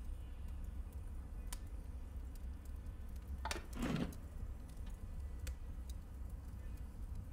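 Faint clicks of a digital SLR camera's buttons over a low steady hum, with a brief swish falling in pitch about three and a half seconds in.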